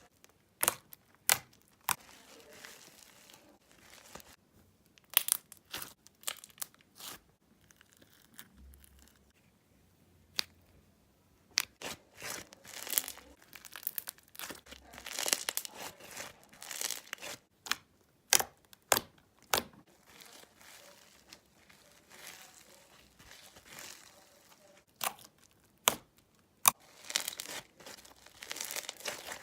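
Crunchy slime being poked and squeezed by hand: irregular sharp crackles and pops, in clusters with short quiet gaps between.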